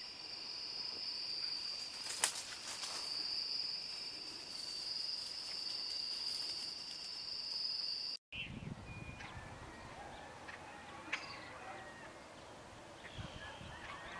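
Night insects trilling in a steady, high, unbroken chorus that cuts off abruptly about eight seconds in. Then comes the early-morning sound of scattered bird chirps and calls.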